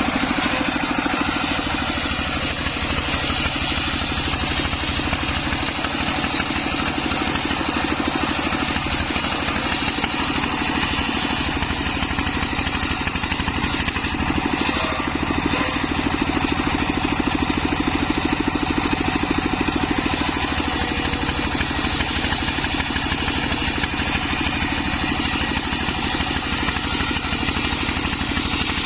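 Homemade circular saw rig running steadily, its engine and spinning blade making an even, continuous machine noise.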